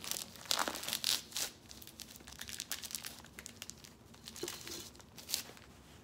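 Cigar packaging crinkling and rustling as a pack of cigars is opened by hand. The crackling is densest in the first second and a half, lighter rustles follow, and there is one more burst near the end.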